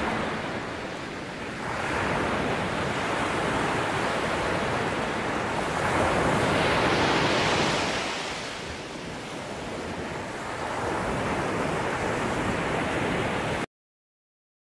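Sea waves washing in over a rocky shore, swelling and easing in surges, then cutting off suddenly near the end.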